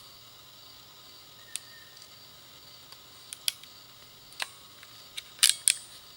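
Hand crimping tool and wire connector being handled and crimped while joining trailer-plug wiring: scattered sharp clicks, with the loudest few close together near the end.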